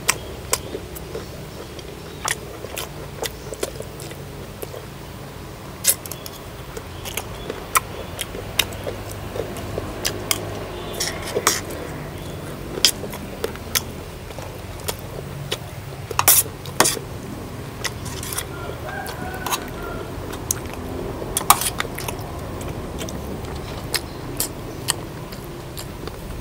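Someone eating crispy fish-sauce-fried chicken tails: irregular sharp clicks and crunches of biting and chewing, over a steady low hum.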